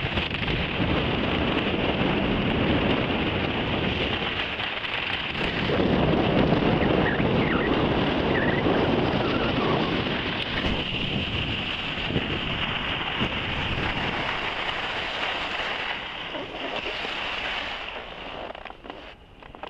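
Wind rushing over the microphone and skis hissing across packed snow during a fast downhill run. The rush eases and dies away about eighteen seconds in as the skier slows to a stop.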